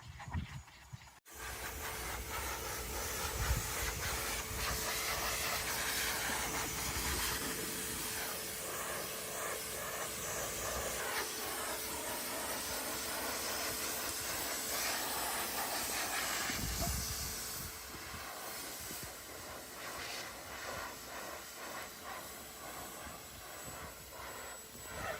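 SHELANDY Groomer Partner pet force dryer blowing: a steady rushing hiss with a steady motor whine under it, switching on abruptly about a second in and getting somewhat quieter after about 17 seconds.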